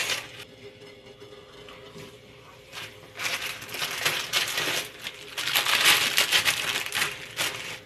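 Plastic instant-noodle packet crinkling in two bursts, a short one about three seconds in and a longer, louder one around six seconds.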